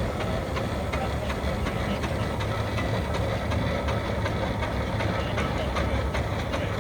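An engine running steadily at a low, even pace with a fast regular ticking of several beats a second, with voices in the background.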